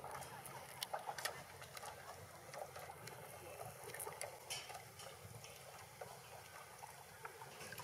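Faint waterside ambience: a soft steady hiss with scattered small clicks and patters.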